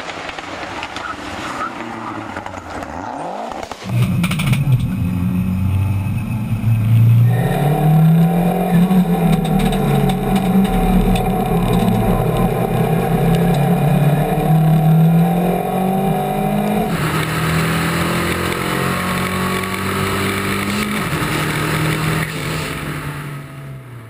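Lancia Delta Integrale rally car's turbocharged four-cylinder engine at full throttle, heard first from the roadside and then, about four seconds in, much louder from inside the car. Its pitch climbs and drops again and again as it revs up through the gears.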